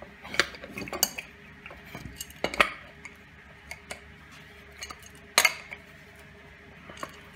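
Adjustable wrenches clinking and knocking against a nut and bolt as the nut is tightened: a few separate sharp metal clicks, the loudest about two and a half and five and a half seconds in.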